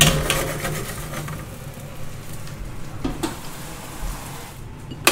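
A metal pan clatters, then onions and peppers sizzle and crackle in hot oil, the sizzle slowly dying down; a sharp click near the end.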